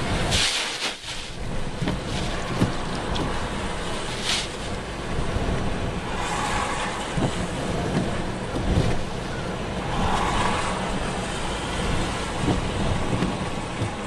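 Storm wind rushing and buffeting the microphone over rough, breaking sea. There are short bursts of splashing, likely spray hitting the car windscreen, about half a second in and again around four seconds.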